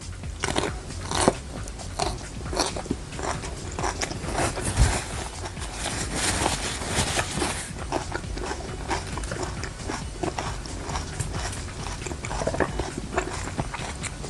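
Close-miked chewing and biting: wet mouth clicks and soft crunches at an irregular pace, from someone eating kwek-kwek, deep-fried battered quail eggs.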